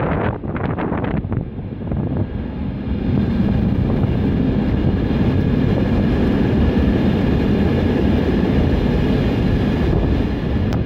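Container wagons of an intermodal freight train rolling past at speed: wheels on rail, uneven for the first couple of seconds, then a steady rumble.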